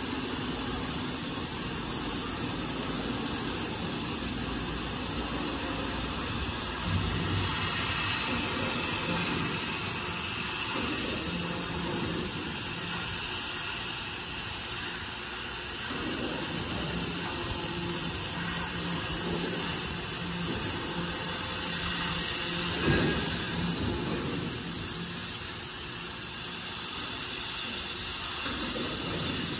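An oxy-fuel cutting torch on a CNC gas-cutting machine hissing steadily as it burns through thick steel plate, with a faint low hum that comes and goes.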